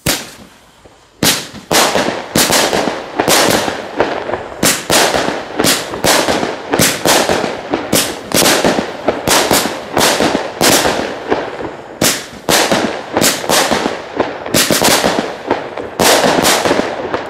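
Röder Feuerwerk 'Farbrausch' 16-shot 20 mm firework battery firing. Starting about a second in comes a fast, uneven string of shots launching and bursting into coloured stars, about two to three bangs a second.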